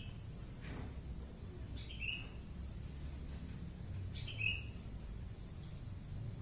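A bird repeating the same short, high chirp about every two seconds, over a low background rumble.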